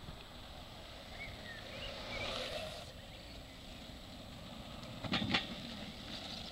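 Longboard wheels rolling on asphalt, with two sharp clacks a quarter second apart about five seconds in as the front and back wheels cross a metal drainage grate.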